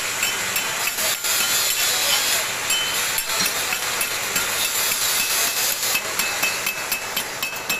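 A metal hand tool tapping and scraping on the welded flange of a stainless steel flexible exhaust pipe: irregular sharp clicks, thickest at the start and again from about six seconds in, over a steady hiss.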